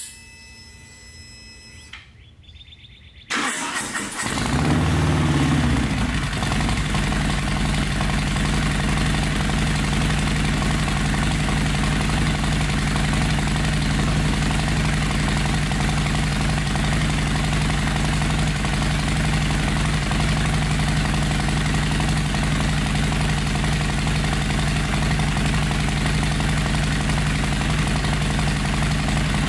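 2021 Harley-Davidson Heritage Classic's Milwaukee-Eight V-twin being started through a Samson true-dual fishtail exhaust. The starter cranks about three seconds in and the engine catches with a short rise and fall in revs. It then settles into a steady idle.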